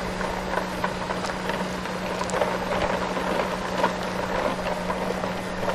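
Plastic toy trucks rolling over dirt and gravel: an irregular scatter of small crunches and clicks from the wheels on the stones, with a steady low hum underneath.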